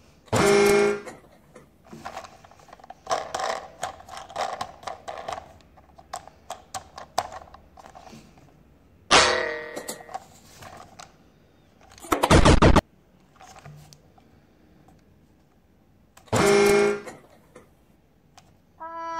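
Short electronic horn-like toots, three times, with clicking and rattling of plastic toy trains being handled in between. A short, loud rattling buzz comes a little past halfway.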